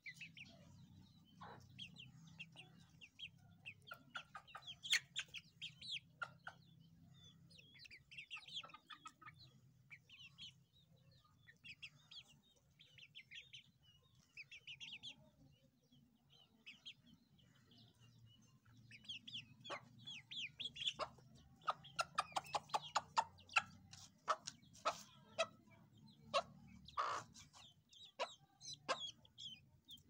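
Caged francolins giving soft, short clucking calls on and off, with a faster run of clucks about two-thirds of the way through.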